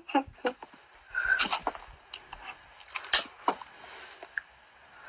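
A woman's quiet, breathy laughter in short, broken bursts, with a few small clicks between them.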